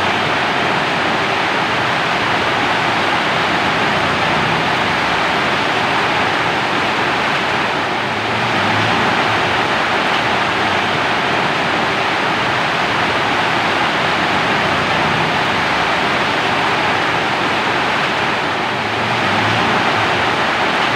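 Steady heavy rain, a dense even hiss, easing slightly about eight seconds in and again near the end.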